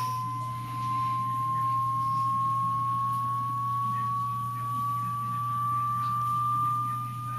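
A single pure hearing-test tone, held steady and slowly rising in pitch, over a low steady hum.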